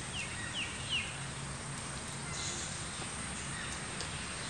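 A small bird chirping three quick times, each chirp falling in pitch, within the first second, over a steady background hiss.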